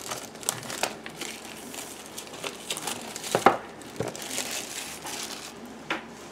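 Board game expansion packaging crinkling and crackling as it is handled, in quick irregular crackles with a sharper one about three and a half seconds in.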